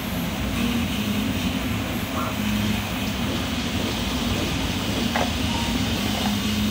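Steady background whoosh with a low hum that comes and goes, and a few faint light clicks as a 3D-printed plastic model is handled and turned over.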